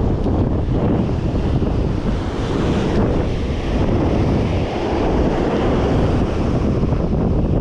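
Wind buffeting the microphone over the steady rush of surf breaking on a sandy beach.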